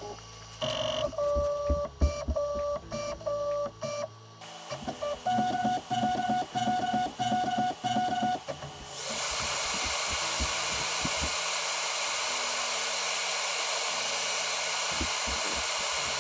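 Creality K1C 3D printer running its self-calibration: a string of short, steady-pitched motor buzzes about twice a second as the axes make short moves, the pitch stepping up partway through. About nine seconds in, a loud, steady rushing hiss of the printer's fan starts.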